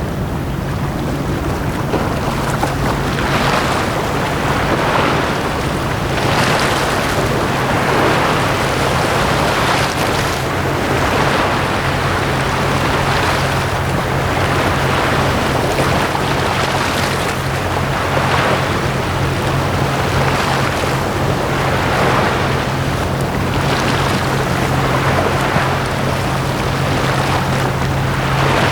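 Small sea waves washing onto the shore, each wash rising and falling every second or two, over a steady low hum.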